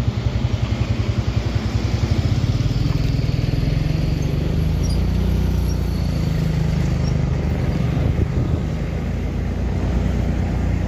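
Vehicle engines in slow traffic at close range, mainly diesel trucks, with a car passing. A rapid, even low pulsing for about the first two seconds settles into a steady low hum.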